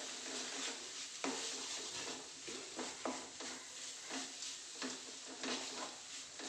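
A spatula stirring and scraping a thick onion, chilli and spice masala around a metal pan, over a light sizzle of frying in coconut oil, with sharper scrapes about a second and three seconds in. This is the masala being sautéed so that the raw smell of the added coriander and pepper powders cooks off.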